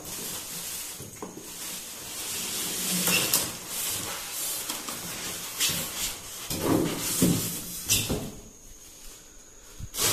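TV packaging being handled: plastic wrap rustling and cardboard and polystyrene foam rubbing and scraping, with a few sharp crinkles.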